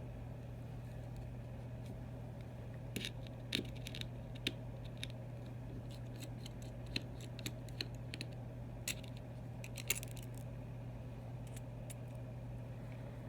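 Small sharp clicks and taps of a precision screwdriver and tiny screws on an iPhone 6's metal parts while the screen's screws are being taken out, scattered irregularly through the middle of the stretch. Under them is a steady low hum.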